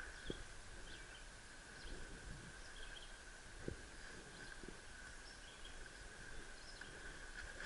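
Faint woodland ambience: a steady high insect drone with scattered bird chirps over it, and a few soft footsteps through the undergrowth.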